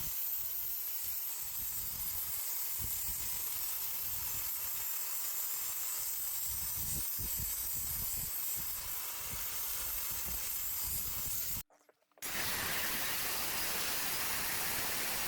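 Steady gas-torch hiss while the anvil is heated for its coat of linseed oil, with a short break about twelve seconds in.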